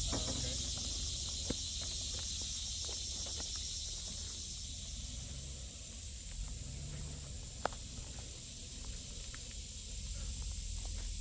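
Insects buzzing in a steady, high, pulsing chorus, with a low steady rumble underneath and a few faint clicks.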